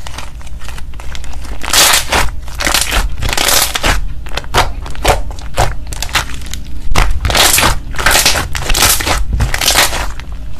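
Thick cream-coloured slime being kneaded and squeezed by hand, with crackling pops and squelches of trapped air in repeated bursts, the biggest coming in clusters about two seconds in and again in the second half.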